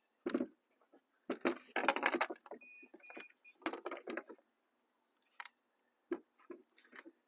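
Fishing rods being lifted out of and set back into a Brocraft four-rod holder: irregular clicks, knocks and rattles of rod, reel and plastic holder, with a short squeak about three seconds in.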